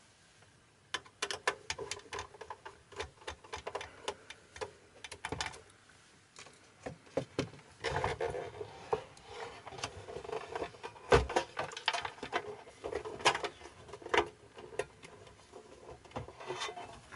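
Irregular clicks, taps and short scrapes of hands and a tool working the outer case off a Sony TC-TX333 cassette deck, with a sharp knock about eleven seconds in.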